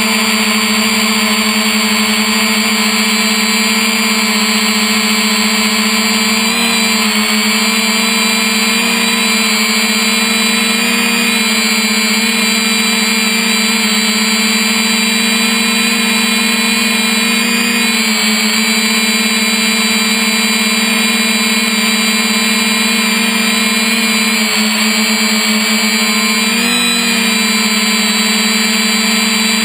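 3DR Iris+ quadcopter's four electric motors and propellers buzzing steadily in flight, heard up close from the camera on board. The pitch dips and recovers briefly about 7, 18 and 27 seconds in as the motors change speed.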